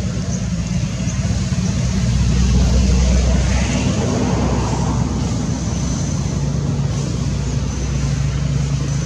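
Low, steady rumble of a running motor-vehicle engine, swelling louder for a couple of seconds near the middle.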